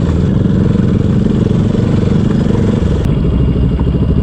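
Motorcycle engine running at low speed on a rough dirt track, then easing off a little under three seconds in as the throttle is rolled back.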